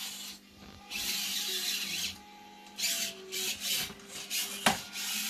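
Small electric motor and gearbox of an FTX Outback Mini 2.0 RC crawler whining in stop-start bursts as the truck climbs over an object, its tyres scrabbling, with one sharp click near the end.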